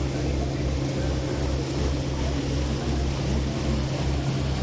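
A river launch's engine running steadily under way: a low drone that throbs about twice a second, over a steady rush of water and wind.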